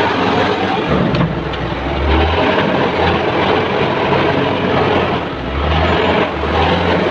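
Komatsu WA350 wheel loader's diesel engine running hard under load, its speed rising and falling a few times as it works.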